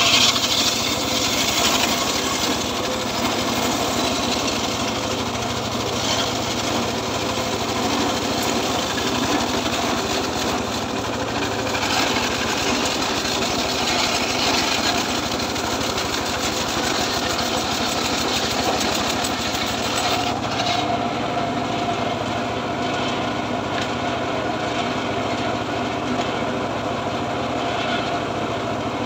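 Homemade circular sawmill running steadily under power, its blade sawing a hard, dry acacia log. About twenty seconds in the high, hissing part of the sound drops away while the machine keeps running.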